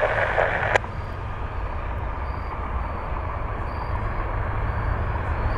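Distant jet engine noise of a Delta Boeing 757-200 slowing on its landing rollout: a steady, even rumble. Under a second in, a scanner radio transmission cuts off with a click.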